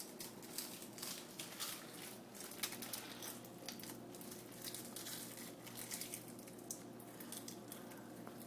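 Crisp roasted seaweed snack and its plastic packaging crinkling and crackling in quick, irregular bursts, over a faint steady hum.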